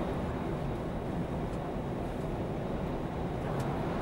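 Steady engine and road noise inside a Scania truck cab while driving: a low, even rumble that holds the same level throughout.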